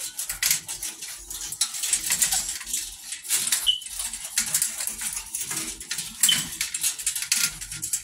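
Puppies scrambling about in a wire crate: a busy clatter of claws clicking and scratching on the crate's wire and floor tray, with two brief high squeaks.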